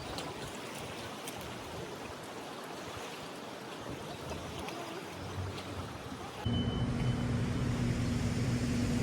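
Steady rush of flowing river water. About six seconds in it cuts sharply to a louder, steady mechanical hum with a low, even tone.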